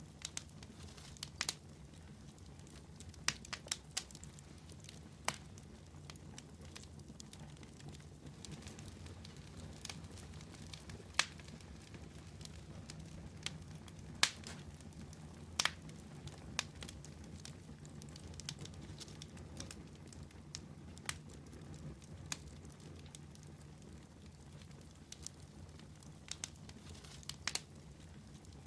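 Wood campfire burning, its logs popping and crackling in sharp, irregular snaps over a low steady background.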